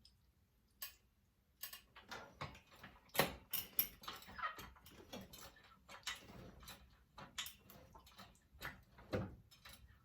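A MoJack mower lift being pumped up with its foot pedal, raising a riding mower: a run of irregular metal clicks and clanks.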